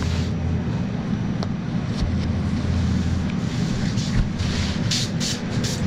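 Paint sprayer running with a steady low drone, and short hissing bursts of spray from the gun in the last two seconds or so.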